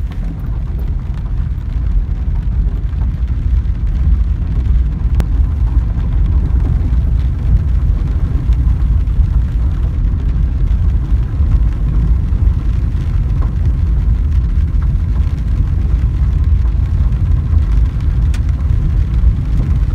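Steady low rumble of a car driving, heard from inside the cabin, mostly deep road and engine noise.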